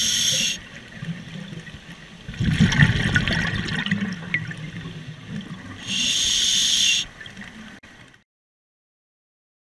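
Scuba diver breathing through a regulator underwater, heard through the camera housing. There is a hiss of inhaling through the demand valve at the start and again about six seconds in, with a burst of gurgling exhaled bubbles between. The sound cuts off just after eight seconds.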